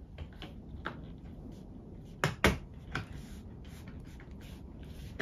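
Plastic interior trim panel on a Mercedes SL R230 being pressed and seated into place by hand: a few light clicks, then two loud knocks about two seconds in, a smaller one just after, and a sharp knock at the end.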